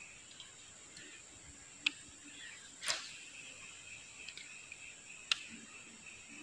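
Steady high-pitched insect drone, with three sharp clicks about two, three and five seconds in; the middle one is slightly longer.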